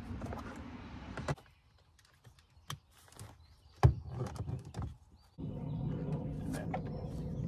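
Plastic speaker grille being handled and fitted onto a car door panel: scattered clicks and knocks of plastic, the sharpest about four seconds in. A steady low rumble sets in during the second half.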